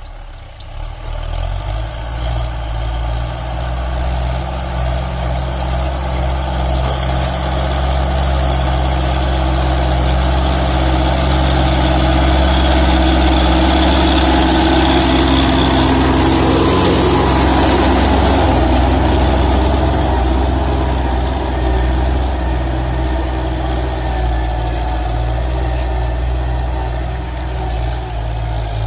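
Tractor engine running steadily while pulling a plough, a low engine drone with a broad rumbling noise over it that grows louder through the middle and eases off toward the end.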